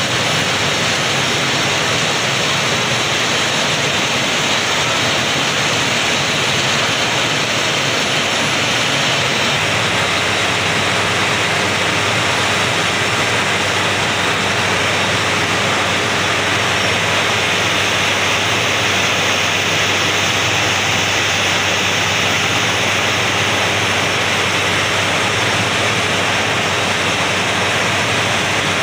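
Borewell drilling machine running: a loud, steady, rushing roar with a faint low hum underneath. It shifts slightly about nine seconds in.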